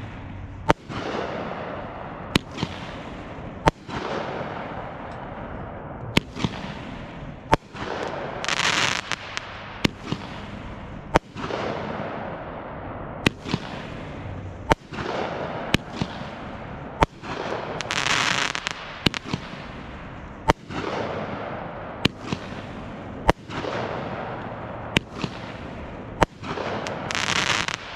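Aerial fireworks going off in quick succession: sharp bangs about every second or so, each trailing away in a fading echo, with three longer, louder bursts of noise lasting about a second each.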